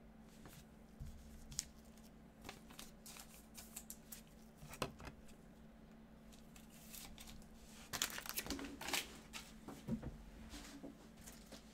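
Faint clicks and crinkling of gloved hands handling a trading card and a clear rigid plastic card case, with a denser run of rustling and clicking about eight seconds in.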